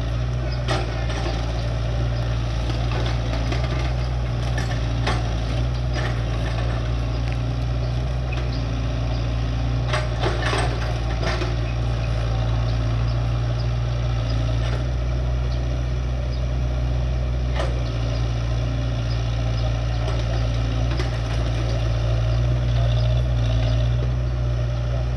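Excavator's diesel engine running steadily, with scattered short metallic clicks and knocks.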